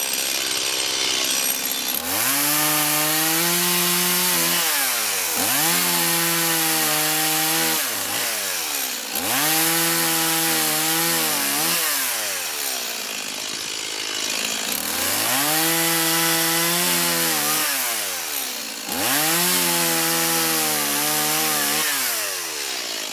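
Stihl MS 180 two-stroke chainsaw with a freshly sharpened chain cutting rounds off a birch log. The engine revs up and holds through each cut of about three seconds, then drops back between cuts, five times in all.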